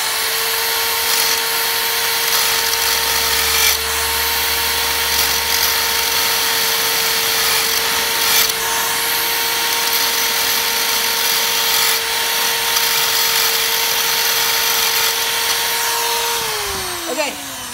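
Handheld electric drill running at one steady speed, spinning a long rod with a disc on its end, with a steady whine. Near the end it winds down, its pitch falling.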